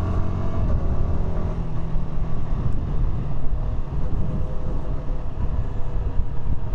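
Yamaha R125's single-cylinder four-stroke engine on its stock exhaust, running at a steady cruise under a heavy low rumble of wind over the helmet microphone. The engine note dips slightly in the first second or so, then holds steady.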